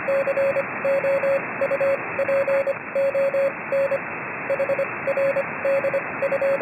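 Morse code: a single steady-pitched tone keyed on and off in short and long beeps, over a steady hiss of radio static.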